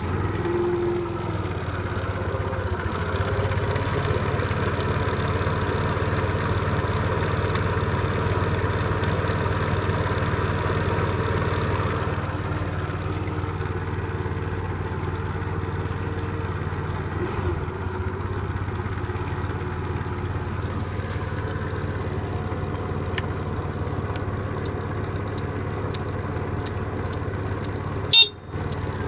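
Suzuki Let's 4 Palette scooter's 50cc four-stroke single idling steadily just after starting. The engine is said to make an abnormal noise while running fine. Near the end there are faint clicks about two a second, then one sharp knock.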